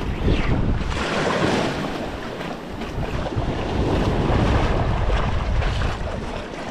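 Small waves washing up over the sand and draining back at the water's edge, with wind buffeting the microphone.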